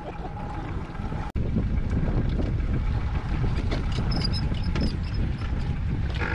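Wind rumbling on the microphone and water noise around a drifting rigid inflatable boat, with no engine note. The sound briefly cuts out about a second in.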